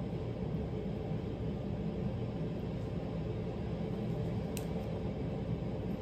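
Steady low background rumble in a small room, with one faint click about four and a half seconds in.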